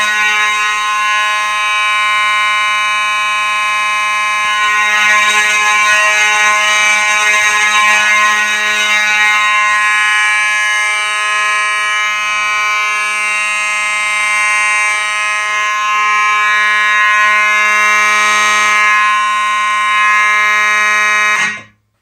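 Vintage Simplex fire alarm horns sounding a steady, continuous buzzing alarm tone. The system is in continuous mode and was set off by a key switch. The tone cuts off abruptly near the end when the panel is reset.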